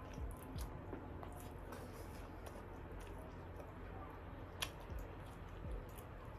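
Close-up chewing and mouth sounds of someone eating tandoori chicken: scattered soft clicks and smacks, one sharper click about four and a half seconds in.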